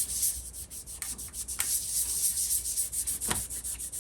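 Hand scraping and rubbing on the small metal pins of a Rock-Ola jukebox's write-in read-out mechanism, a hissy scratching sound with a few sharp clicks, one about a second and a half in and one past three seconds.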